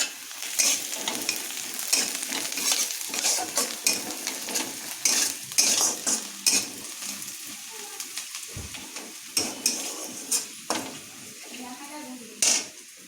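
A utensil stirring and scraping in a pan as food fries with a sizzle, in many irregular strokes with clinks against the pan.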